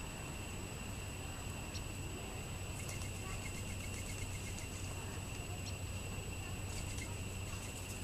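Small songbird calling: a series of short, evenly spaced high notes lasting about two seconds, starting about three seconds in, with a couple of single brief chirps either side, over a steady background hiss and hum.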